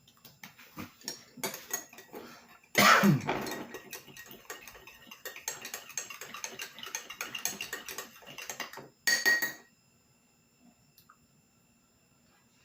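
A metal spoon stirring and clinking in a cup of turmeric drink. It rattles quickly and busily for several seconds and ends with one short ringing clink near the end.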